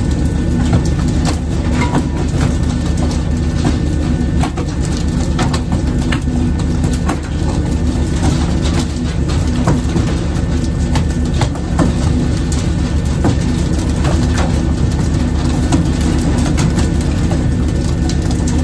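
Fishing boat's engine running with a steady low drone, over many irregular sharp thuds and slaps of skipjack tuna being flung off pole-and-line hooks onto the wooden deck and flapping there.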